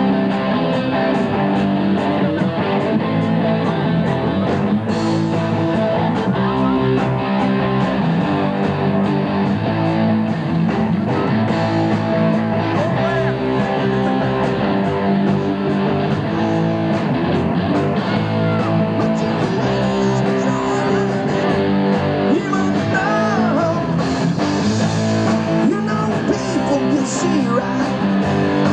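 Live rock band playing: electric guitars over bass and drums, loud and steady throughout.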